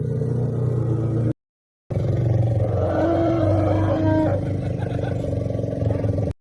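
Asian elephant giving a low, sustained rumbling call. A short clip is cut off a little over a second in, followed by half a second of silence and then a longer stretch of the same low call.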